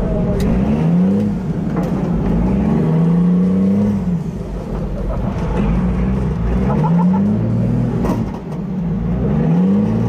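Monster truck engine heard from inside the cab, revving up in pitch again and again, about four climbs in ten seconds, as the truck is driven.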